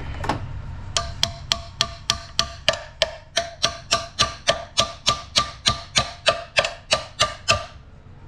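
Hammer tapping a socket down onto a damaged bolt head: about two dozen quick, even blows, three or four a second, each with a short metallic ring, stopping about a second before the end.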